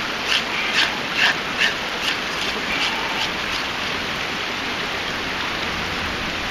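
Knife blade scraping bark off a green twig into a metal canteen cup, in short strokes about two a second that stop after three or four seconds. A creek runs steadily underneath.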